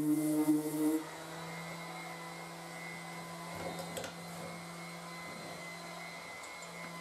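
Dual-action orbital sander running on a plastic car spoiler with a loud, steady hum. About a second in it is lifted off the panel and runs free, quieter and slightly higher in pitch, with a few faint handling clicks in the middle.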